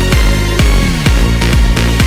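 Background electronic dance music with a steady kick-drum beat, about two beats a second, under sustained synth notes.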